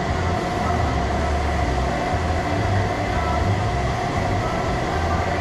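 Steady mechanical drone of a running motor: a low, uneven rumble under a constant hum.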